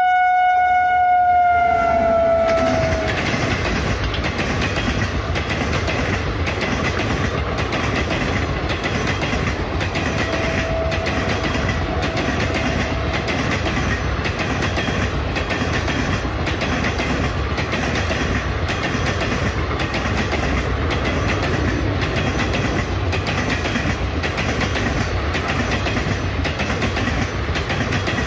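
Indian Railways WAP-7 electric locomotive sounding its horn as it passes at speed: one long note whose pitch drops slightly as it goes by. Then the steady rumble and rhythmic clickety-clack of the express's coaches running over the rail joints, with a brief, fainter horn note about ten seconds in.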